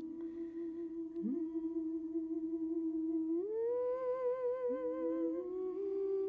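Several layers of a soprano's hummed voice, looped and harmonized on itself: long held tones with vibrato. A new voice enters with a quick upward scoop about a second in and again near the end, and one line rises to a higher note just past halfway.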